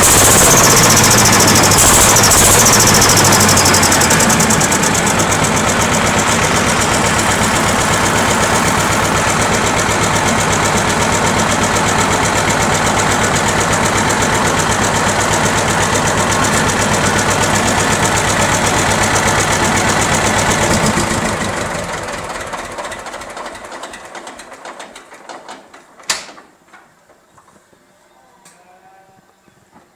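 T-25 tractor's two-cylinder air-cooled diesel running with a spring 'turbo whistle' fitted in its exhaust. A high hiss rides over the engine for the first few seconds, then the engine runs steadily. About 21 s in it is shut off and runs down over a few seconds; a single sharp click follows a few seconds later.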